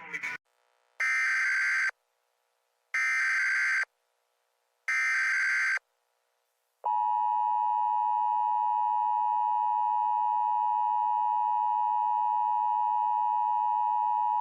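Emergency Alert System broadcast alert: three short bursts of SAME header data tones, then the EAS attention signal, a steady two-tone sound held for about eight seconds.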